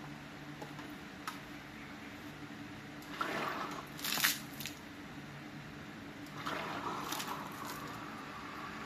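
OKURA SL-25 stainless submersible pump running in a small basin of water: two spells of splashing and gurgling water, about three and six and a half seconds in, over a low steady hum.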